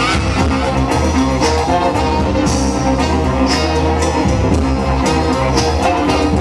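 Live band playing Yemenite fusion music with brass, bowed strings, guitar and conga drums over a steady beat; trumpet and trombone stand out.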